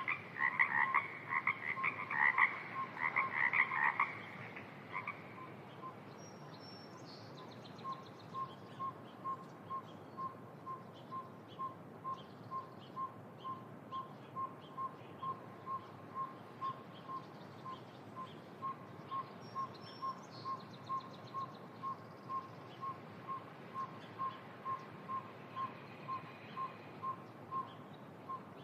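Frogs croaking in a wetland chorus for the first four seconds or so. After that comes a long, even series of short whistled toots, about two a second, over a faint steady hiss.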